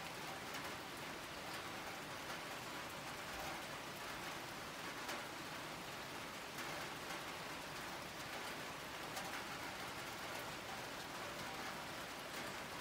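Steady rain falling, with scattered individual drops ticking on nearby surfaces.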